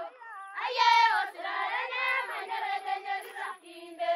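A group of Maasai women singing together in high voices, a chanted song in short phrases with brief breaks between them.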